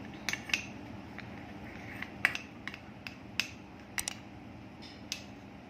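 A spoon clinking lightly against a dish about a dozen times, at irregular intervals, as honey is spooned onto ground ginger.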